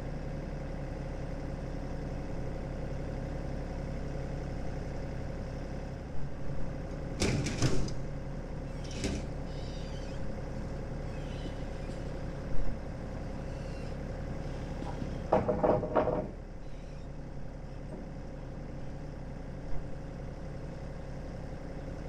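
Tractor engine idling steadily, with a few knocks and clatters over it, the sharpest about twelve seconds in.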